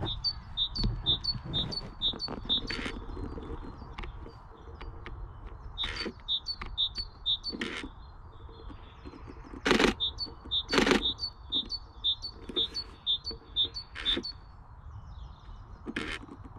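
A small songbird singing runs of short, high, repeated notes, about three a second, broken by pauses. Several sharp clicks, the loudest two about ten and eleven seconds in.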